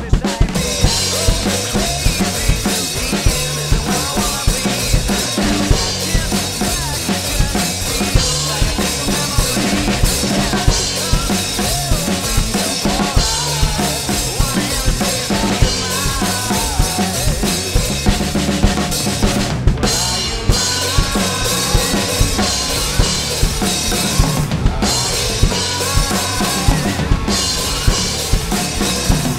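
A drum kit played in a steady rock beat, with kick drum, snare and Meinl cymbals, over a recorded rock song.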